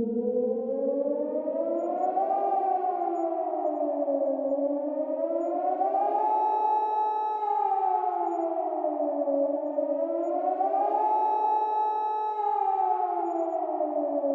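Civil defence warning siren wailing: two tones sound together and glide up and down in slow cycles of about five seconds, rising three times, the later peaks held briefly before falling.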